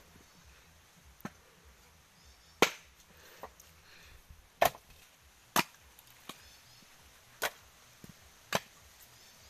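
A bolo knife chopping into husked coconuts to split them for copra: a string of sharp, separate strikes, about one every second or two, some lighter than others.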